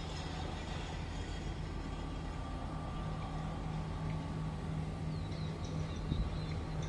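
Outdoor urban ambience: a steady low rumble of distant traffic, with a steady low hum coming in a few seconds in and a few faint high chirps near the end.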